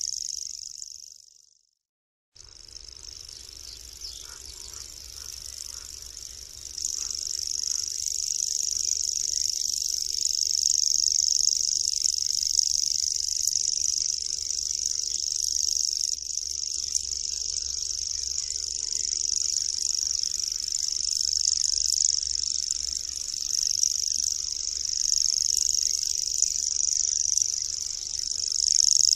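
Common grasshopper warbler singing its reeling song, a long, unbroken, very high trill. It fades out in the first two seconds, then after a short break starts again more quietly and grows louder a few seconds later.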